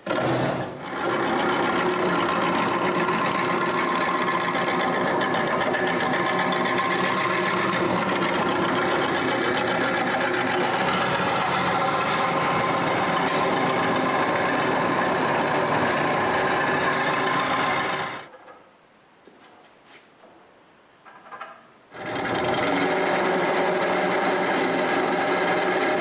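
Wood lathe spinning a long cherry post while a turning gouge cuts it round: a loud, continuous chattering cut over the motor's steady hum. A little over two-thirds through it drops away to a faint spell of about four seconds, then the cutting starts again.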